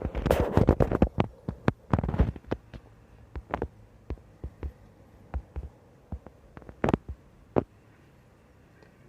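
Irregular knocks and rubs, dense and loud for the first couple of seconds, then sparse single taps, with two clearer knocks near the end.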